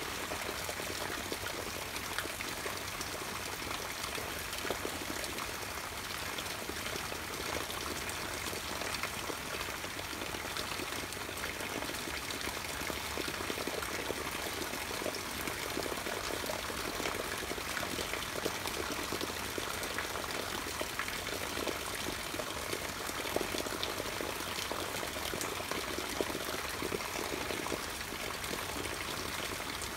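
Steady rain falling: an even hiss made of many small drop hits.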